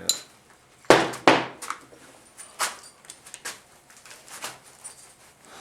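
Two sharp knocks about a second in, then scattered lighter clicks and knocks: hand tools and parts handled against a 4L60E automatic transmission during teardown.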